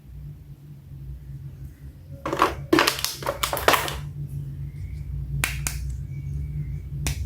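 Irregular sharp plastic clicks and rattles from a toy action figure being handled, in a cluster a couple of seconds in, then a pair and a single click later, over a steady low hum.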